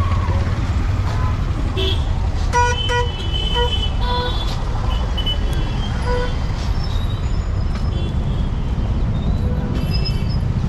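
Street traffic rumbling steadily, with a cluster of short vehicle-horn toots about two and a half to four seconds in and one more toot at about six seconds.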